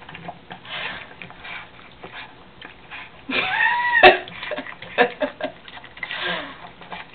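Boston Terrier puppy eating greedily with her face in the bowl: rapid sniffing and snorting breaths mixed with chomping and sharp clicks of food and teeth against the bowl. A louder snorting stretch a little past three seconds in ends in a sharp clack.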